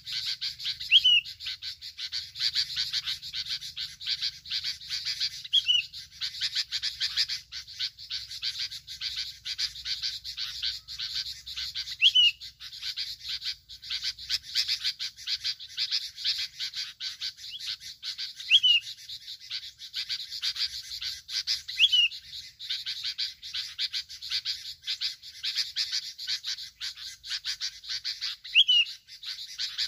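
Sooty-headed bulbuls (bông lau) calling: six short, sharp notes spaced a few seconds apart. They sound over a dense, continuous pulsing chorus of chirps.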